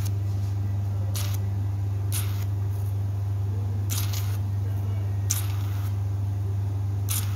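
HydraFacial machine running with a steady low hum while its vacuum handpiece gives short hisses of suction every second or so as the tip slides over the skin during the extraction step.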